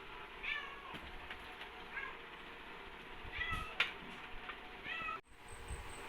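A cat meowing four times in short, separate calls, with a sharp click in the middle.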